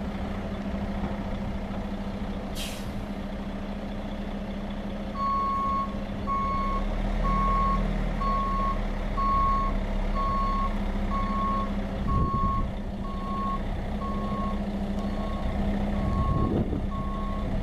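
Heavy diesel engine of a 2003 Sterling LT9500 plow truck running steadily, with a short air-brake hiss about two seconds in. From about five seconds in the truck's reverse alarm beeps at a steady pace, a little more than once a second, as it backs up.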